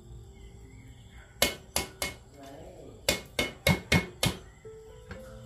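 A hammer striking hard in two runs, three quick blows then five in a steady rhythm about a third of a second apart.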